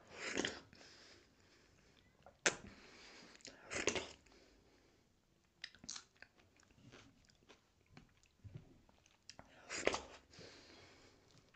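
Close-miked eating sounds: a person chewing soft dhido and sisnu (nettle soup) taken by hand, with wet smacking and chewing throughout. A few louder wet mouthfuls come at the start, about 4 seconds in and near the end, along with small clicks.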